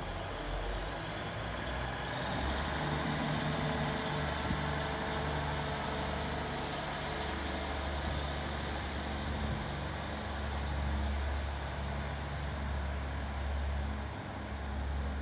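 Underfloor diesel engines of a Class 150 diesel multiple unit running with a steady low drone. A high thin whine rises over the first few seconds and then holds steady.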